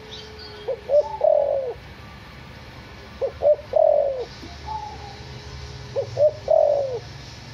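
Spotted dove (derkuku) cooing, three song phrases a couple of seconds apart, each two short notes followed by a longer falling coo.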